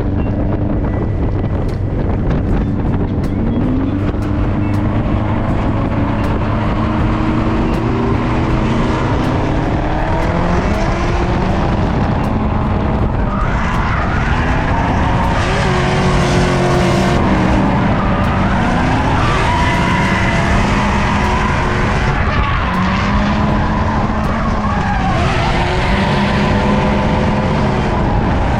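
Mazda Miata's turbocharged four-cylinder engine revving up and down repeatedly while drifting, with tyres skidding and squealing. The engine has a known misfire on cylinder 4.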